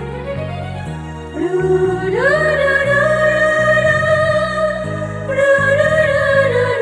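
Ringtone music: a wordless sung melody that glides up about a second in and holds long, slightly wavering notes over a synth bass line that steps from note to note.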